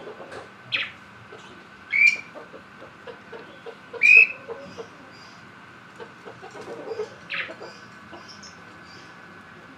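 Lovebird giving short, shrill calls: four loud ones a second or few apart, with softer chattering between.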